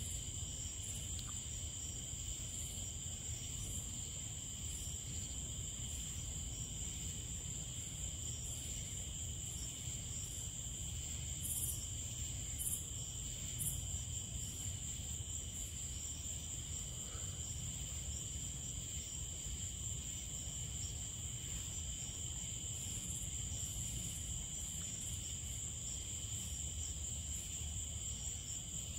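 Evening chorus of crickets and other insects trilling steadily at two high pitches, over a low steady background rumble, with a few faint clicks near the middle.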